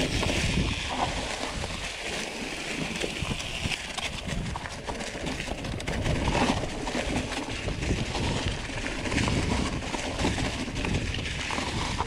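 Mountain bike rolling downhill over a trail of dry fallen leaves: a continuous crunching, rustling hiss from the tyres, with many small clicks and rattles from the bike and a low rumble underneath.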